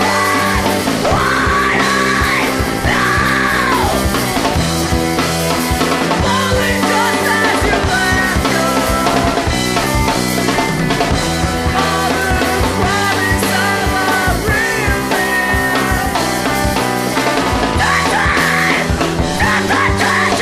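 Rock music soundtrack with a singing voice over a steady band.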